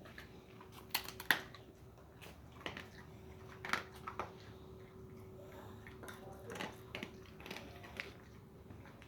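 Irregular clinks and taps of a feeding dish, a dozen or so short sharp ticks, over a faint steady hum.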